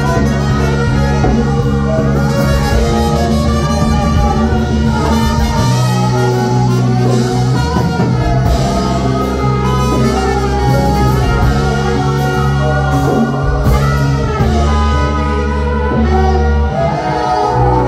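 Live jazz band playing: a horn section of trumpet, alto and tenor saxophones and trombone over piano, bass and drums with cymbals, with vocalists singing.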